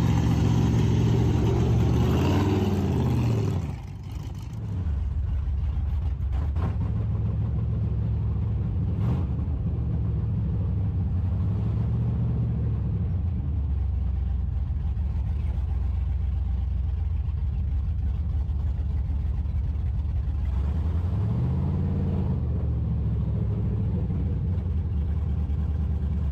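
Second-generation Chevrolet Camaro's engine running on its first road drive, its pitch falling about three seconds in, then holding steady with a couple of brief rises and falls as it picks up speed and slows. It is not running its best: a stumble that the owner puts down to the Holley fuel injection having only a base tune.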